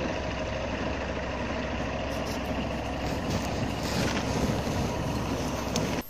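Fire engine running steadily, its engine droning low under a continuous hiss.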